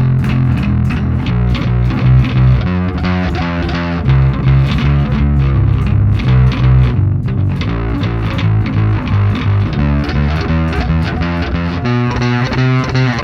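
Warwick Vampyre SN-5 five-string electric bass played through a Neural DSP Quad Cortex amp-modeller preset: a riff of plucked notes, with a brief break about seven seconds in.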